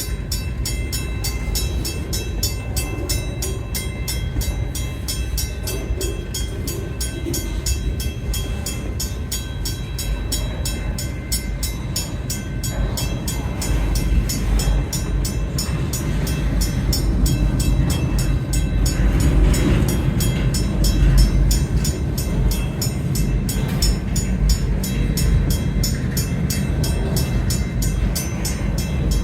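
CN freight train rolling past with a steady low rumble and rapid wheel clatter; the rumble grows louder about halfway through.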